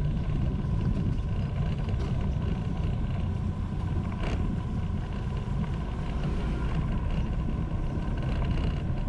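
Steady low rumble of riding a motorbike through city street traffic, with wind buffeting the microphone.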